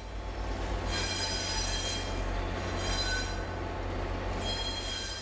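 MBTA diesel locomotives rolling slowly through a rail yard, their wheels squealing high-pitched on the rails several times over a low, steady rumble.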